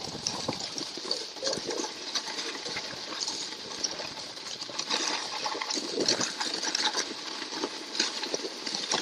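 Skis or a board sliding down a groomed slope of packed snow: a steady hiss broken by irregular scraping of edges on the snow, with louder scrapes around the middle and near the end as the rider slows.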